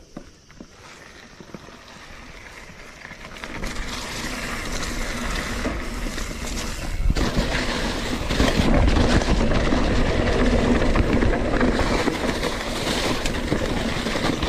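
Mountain bike riding down a dirt forest trail: tyres rolling over dirt and dry leaves with rattling from the bike and wind rushing over the camera's microphone. The noise grows louder as the bike picks up speed from a standstill and stays loud and steady from about halfway through.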